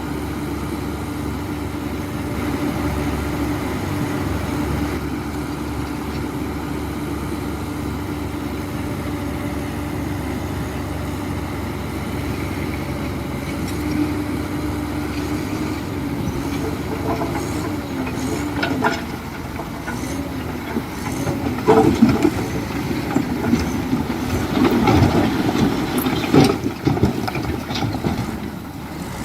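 Heavy diesel construction machinery running steadily, with metallic clanking and knocks that start about halfway through and grow louder near the end.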